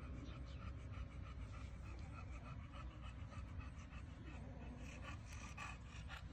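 A dog panting faintly in quick, even breaths, about four a second, over a steady low rumble.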